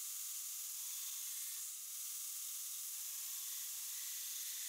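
Faint steady hiss, mostly high-pitched, with no distinct strokes, knocks or machine hum.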